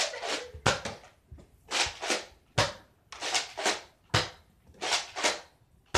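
Spring-powered Nerf dart blasters being primed and fired over and over, each shot a sharp snap with a short puff of air, about ten in quick succession.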